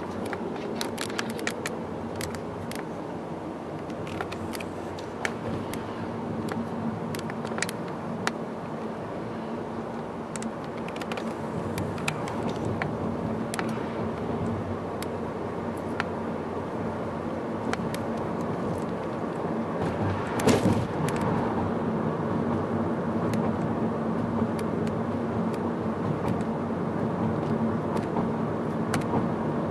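Steady road and engine noise of a car driving, with a low even hum and scattered sharp clicks in the first half. There is a brief louder rush about two-thirds of the way through, and the noise grows slightly louder toward the end.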